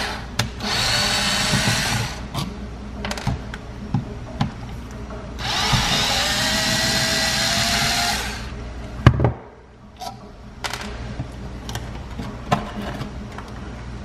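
Ryobi cordless drill/driver with a screwdriver bit backing out the mounting screws of a GFCI outlet, running in two steady whining spells of about a second and a half and about three seconds. Between and after them come light clicks of the tool and outlet, with one sharp knock about nine seconds in.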